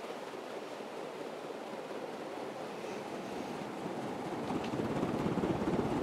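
Slumber Quiet Casablanca Four Seasons ceiling fan running at full speed: a steady rush of air from the spinning blades. It grows louder about four seconds in, with wind buffeting the microphone.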